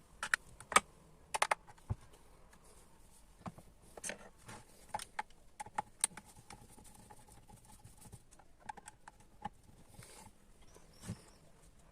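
Irregular light clicks and taps of small plastic and metal parts being handled on a clothes iron being taken apart for repair. The clicks come in a quick cluster in the first two seconds, then more sparsely.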